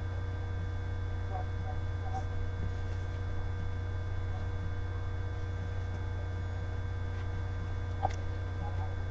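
Steady low electrical hum, with one short faint tap about eight seconds in as a hand swings in to set down a cap.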